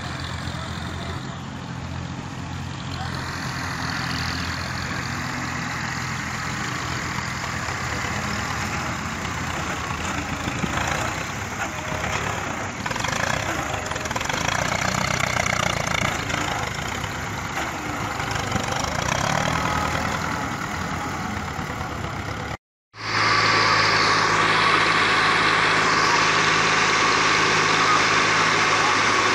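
Tractor diesel engines running steadily, with engine and ground noise. About three-quarters of the way through, the sound cuts out abruptly for a moment and comes back louder: a steady, close-up engine run as the tractor's tipping trolley dumps its soil.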